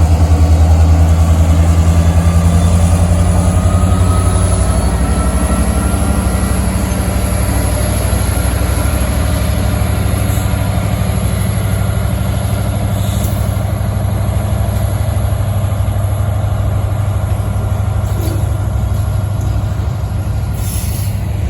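Heavy engine running steadily with a deep low hum, getting slowly quieter over about twenty seconds.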